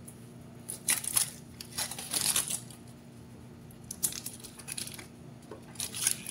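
Foil wrappers of individual cream cheese portions being torn and peeled open by hand, crinkling in several short bouts.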